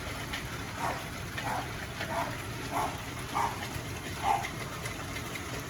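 A dog barking repeatedly, about six short barks roughly every half second, over the steady noise of hail and rain falling, with scattered clicks of hailstones striking.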